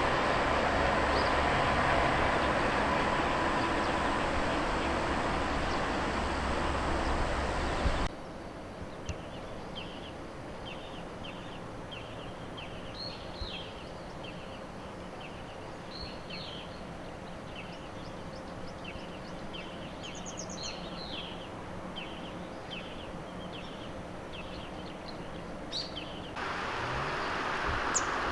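Wild small birds chirping: many short, high calls, several a second, over a quiet background. Before these, a loud steady rushing noise runs for several seconds and cuts off abruptly, then returns near the end.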